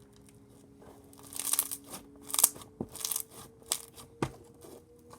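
Crinkling, crunching handling sounds in a quick run of short bursts starting about a second in, then a few sharp clicks near the end, as a slime and its plastic container are handled.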